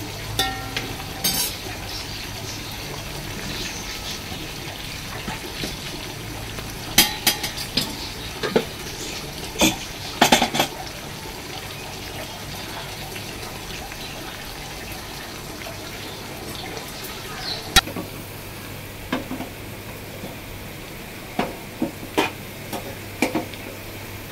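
Sliced onions and whole spices sizzling steadily in hot oil in a metal cooking pot as the onions brown. A spoon knocks and scrapes against the pot now and then, in a few clusters of sharp clicks around the middle and near the end.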